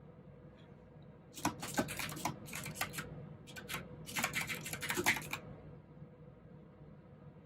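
Typing on a mechanical keyboard with clicky blue switches: four short bursts of rapid keystrokes beginning about a second and a half in, stopping about two seconds before the end, with faint room tone around them.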